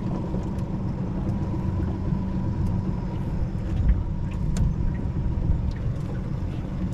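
A jon boat's outboard motor idling steadily, with a few faint light clicks.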